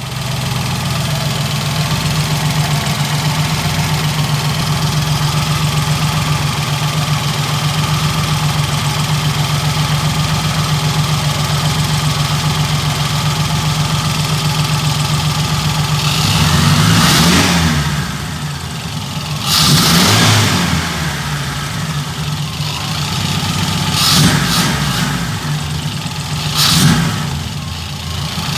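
Volkswagen AP four-cylinder petrol engine idling steadily for about sixteen seconds, then revved briefly several times, each rev rising and dropping back to idle. A strange 'tss tss tss' noise, apparently from the lower part of the engine, comes at idle and as the revs fall.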